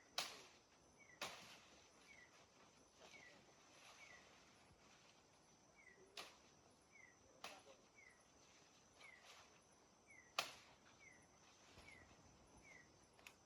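Faint outdoor ambience: a steady high-pitched insect drone, with a short falling chirp repeated about once or twice a second. A handful of sharp clicks or snaps come through it, the loudest near the start and about ten seconds in.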